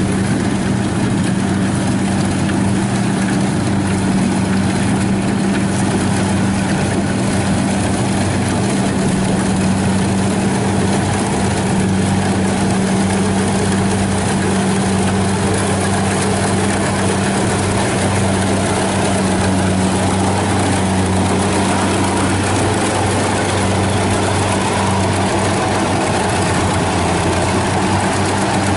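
Kubota DC70 combine harvester's diesel engine running steadily under load as it cuts and threshes rice. A constant low engine hum lies under the even noise of the cutter and threshing drum.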